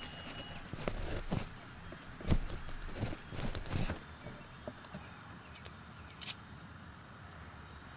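Soft rustles and scattered knocks of motorcycle riding gloves and gear being handled as the gloves come off, mostly in the first half, with one short scratchy rasp a little after six seconds.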